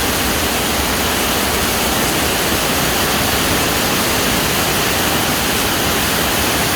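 Strong storm wind blowing in a steady, loud rush, with rain.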